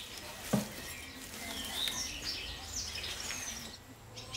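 Birds chirping, with short high calls and quick gliding notes through the middle. A single sharp knock about half a second in is the loudest sound.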